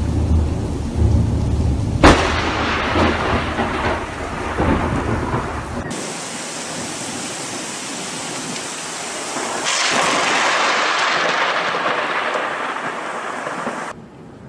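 A sharp thunderclap about two seconds in, then a deep rolling thunder rumble. After an abrupt cut about six seconds in comes a steady hiss of heavy rain, which grows louder near ten seconds.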